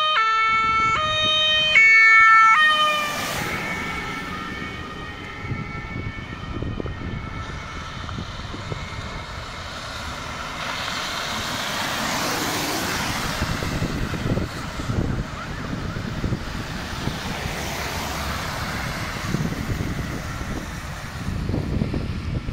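Ambulance two-tone siren alternating between a low and a high note about once a second, loud for the first three seconds. It then drops away into steady road and tyre noise of passing traffic, with faint siren tones still under it.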